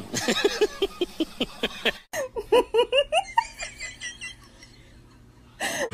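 Human laughter in quick, evenly spaced bursts; after a cut about two seconds in, a high giggle whose short pulses climb in pitch.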